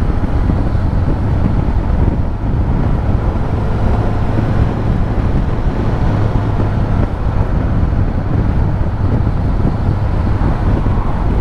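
Heavy wind noise rushing over a helmet-mounted microphone during a motorcycle ride, with the steady low hum of a Suzuki GSX-S1000GT's engine underneath. The microphone sits in a dead cat inside the helmet's cheek pad pointing downwards, which lets in much of the wind.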